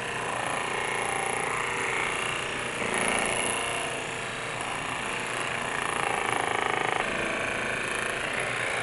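Percussion massage gun (TIMTAM Power Massager Pro) running on its second speed setting, 2000, its ball head working against the upper arm: a steady motorized buzz. The tone changes a little about three and seven seconds in as the head is moved along the arm.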